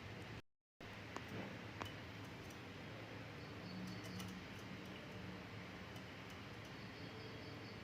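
Cockatiels making quiet small clicks and faint high chirps over a low steady hum; the sound cuts out for a split second near the start.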